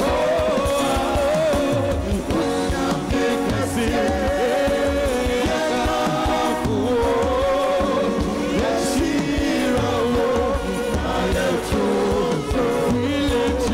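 A gospel song performed live: singers on microphones with a backing band, playing without a break.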